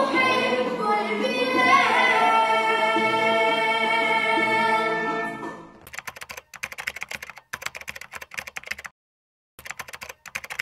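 Children's choir singing, holding a long final chord that fades out about five seconds in. Then a fast run of typing-like clicks in short bursts, a keyboard-typing sound effect.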